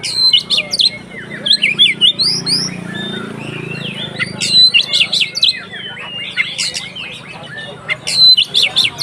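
Oriental magpie-robin (kacer) singing loudly in its full 'ngeplong' style: rapid runs of sweeping whistles and sharp chirps in dense bursts with short pauses, a song meant to rile other kacer into singing.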